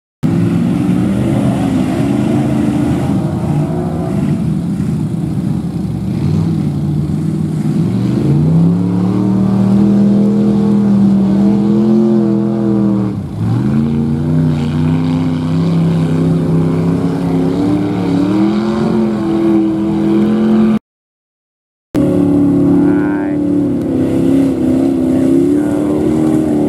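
Engine of a lifted old Ford mud-bogging pickup, revving up and falling back repeatedly as it churns through mud and water. The sound cuts out completely for about a second near the end.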